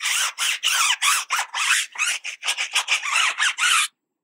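Stiff-bristled tire brush scrubbing a wet rubber tire sidewall coated in degreaser, in quick back-and-forth strokes, about three or four a second, that stop abruptly near the end.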